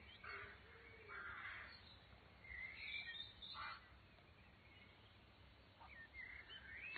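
Faint outdoor birds calling: several separate calls spaced through the stretch, some harsh and some gliding, with a few quick twittering notes near the end.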